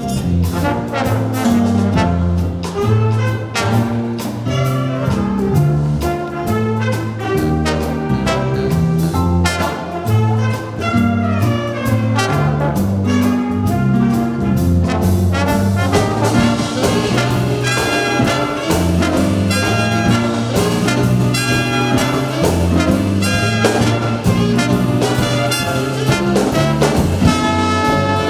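Jazz big band playing a swing tune, with the trumpet and trombone section prominent over the rhythm section.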